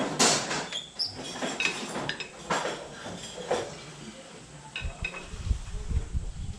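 Metal hand tools and sockets clinking and clattering together, as when rummaging through a tool drawer for a large socket. Sharp clinks with a short metallic ring, and a low rumbling knock near the end.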